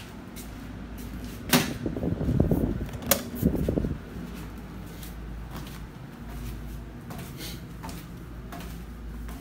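A door being handled: two sharp knocks of the latch and door about one and a half and three seconds in, with rattling between. After that come faint light steps over a low steady hum.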